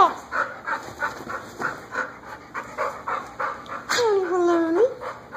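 A dog panting quickly, about three breaths a second. About four seconds in comes a drawn-out whine of roughly a second, which dips in pitch and then rises sharply at the end.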